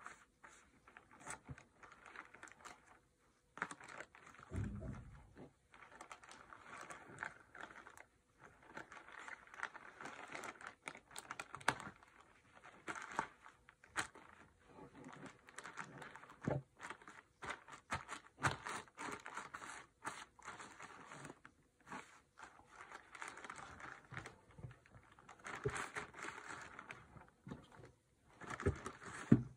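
Clear polythene courier mailer bags crinkling and rustling in irregular bursts as they are handled, smoothed and opened, with scattered clicks and a soft knock about four seconds in.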